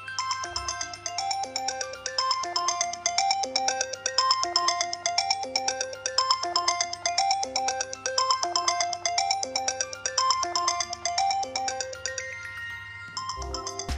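Mobile phone ringtone playing: a short, bell-like melodic phrase stepping downward, repeating about every two seconds over a steady low hum. Near the end the tune breaks off and a different ringtone starts, with a few low thumps.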